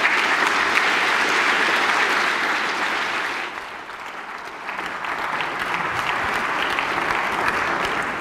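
A large audience applauding, a dense steady clapping that eases a little about halfway through and then picks up again.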